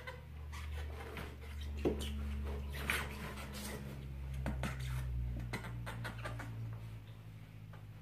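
Bernese mountain dog playing with a big rubber ball on a hardwood floor: scattered knocks and scuffs over a low rumble.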